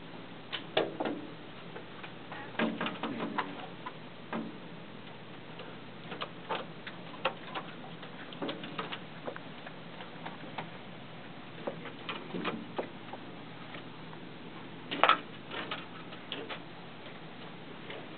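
Cooper's hawk's talons and beak tapping and scraping on the window glass and sill as it fights its reflection: irregular clicks and short knocks, in clusters, with the loudest knock about fifteen seconds in. Heard from the inside, through the glass.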